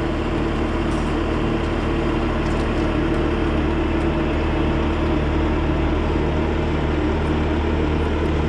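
A large engine running steadily at a constant speed, a deep even drone with a low hum under it.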